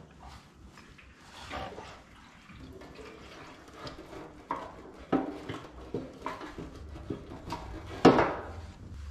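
Knocks and clunks of a motorcycle fuel tank being lowered onto the frame and pushed down onto its mounts: a series of light knocks, then one louder clunk about eight seconds in.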